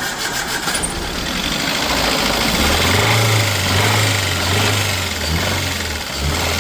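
Maruti Suzuki Wagon R engine being started and then running, settling into a steady run about two and a half seconds in. It carries an abnormal noise that the mechanic traces to the crankshaft.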